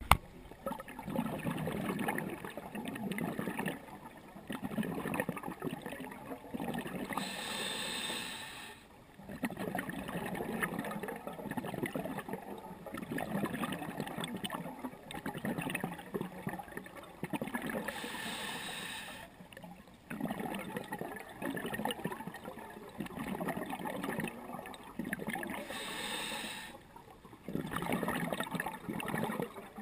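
Scuba diver breathing underwater through a regulator: three short hissing inhales about ten seconds apart, with the crackling, gurgling rush of exhaled bubbles filling the time between them.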